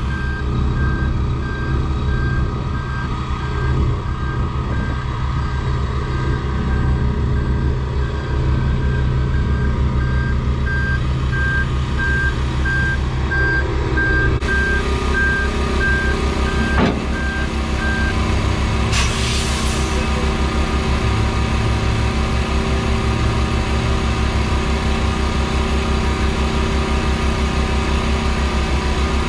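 Kenworth T800's Caterpillar C15 diesel idling as the tractor backs up slowly, its backup alarm giving a steady series of beeps that stops about 18 seconds in. About 19 seconds in, a short burst of air hiss.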